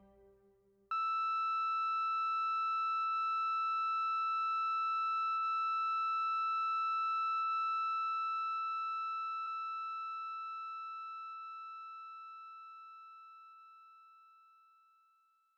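Bedside patient monitor's flatline alarm: one steady high tone that starts suddenly about a second in, holds, then slowly fades away over the second half. It is the sign that the patient's heart has stopped.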